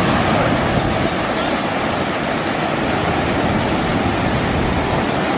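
Ocean surf breaking and washing through the shallows, a steady loud rush of noise.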